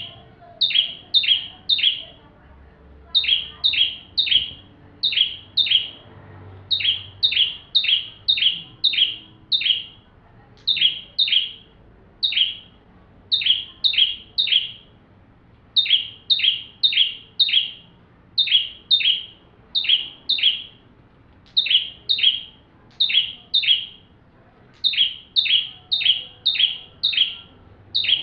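Ciblek tamu, a prinia, singing without pause: sharp, downward-sliding chirps in quick runs of two to five notes, the runs following one another every second or so.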